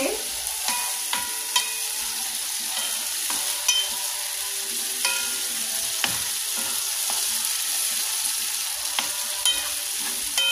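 Sliced tomatoes and onions sizzling in a frying pan while a wooden spoon stirs them, scraping and knocking against the pan every second or so.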